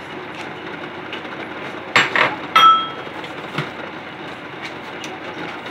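Ceramic dishes clinking together three times about two seconds in, the last clink ringing briefly, then a lighter knock, over a steady background rumble.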